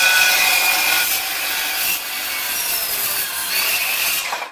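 Ridgid circular saw running and cutting through a wooden drawer board, a loud steady whine and rasp of the blade in the wood that stops suddenly near the end as the cut finishes.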